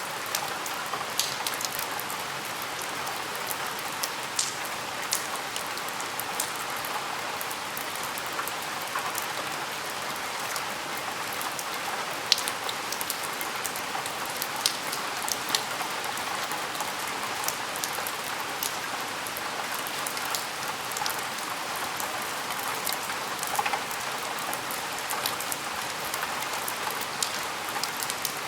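Steady rain falling against a window, with a constant hiss and many close, sharp drop ticks scattered through it.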